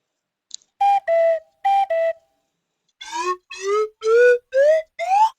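Cartoon whistle sound effects: two pairs of short high-then-low notes, then five quick upward slide-whistle glides, each starting a step higher than the last.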